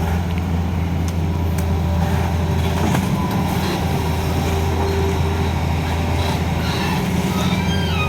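Diesel engine of a large Hitachi excavator running steadily, a constant low drone, with a few faint clicks and squeaks from the machine above it.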